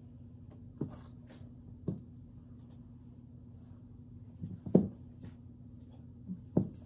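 Hand handling and tapping an Echo Dot smart speaker on a desk: a few short light knocks and rubbing sounds, the loudest about two-thirds of the way through, over a steady low hum.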